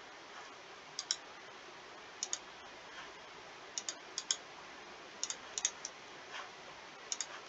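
Computer mouse buttons clicking: short sharp clicks, mostly in quick pairs, every second or so.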